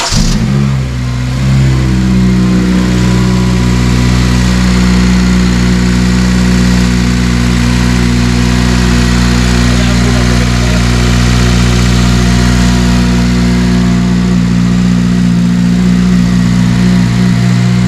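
Honda Civic FN2 Type R's 2.0-litre four-cylinder engine catching on its first start after an Injen cold air intake was fitted. Its revs flare briefly and settle within the first couple of seconds into a steady idle.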